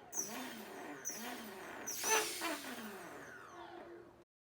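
Small brushless drone motors blipped up three times about a second apart, the third blip loudest. Each blip is followed by a whine that falls in pitch as the motors spin down, and the sound cuts off suddenly near the end.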